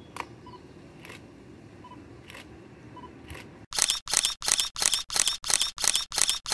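DSLR camera shutter clicks: four single shots about a second apart with faint short beeps between them, then a loud, fast series of about ten shutter clicks, roughly three a second.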